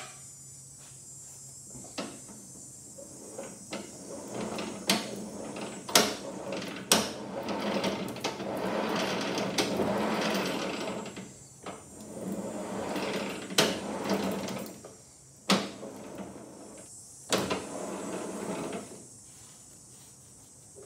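Hands working grease into a Poulan Pro PR241 snow thrower's ring gear and pinion gear and wiping around them: scattered sharp metal clicks and knocks, with longer stretches of rubbing and rattling in the middle and again near the end.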